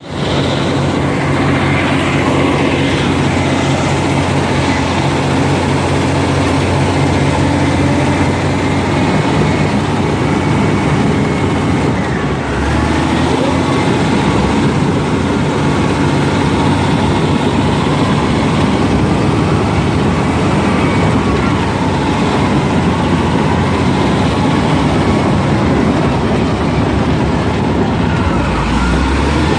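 Caterpillar D6 bulldozer's diesel engine running steadily as it pushes dirt, its note dipping briefly about twelve seconds in.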